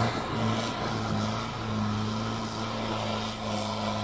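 Off-road 4x4's engine running at steady revs, a steady low drone.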